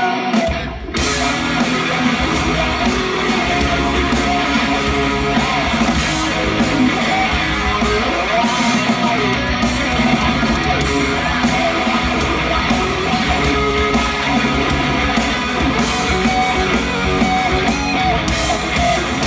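Live rock band playing an instrumental passage without vocals: electric guitars, bass and drums with a steady beat, after a brief drop just under a second in.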